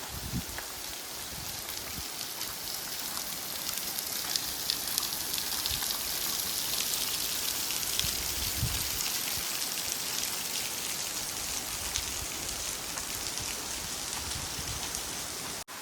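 Steady splashing hiss of a low-flow waterfall, thin streams of water falling onto rock. It breaks off for a moment near the end.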